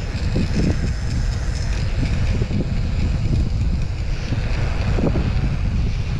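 Wind buffeting an action camera's microphone as a bicycle rides fast down a paved road: a steady, heavy low rumble.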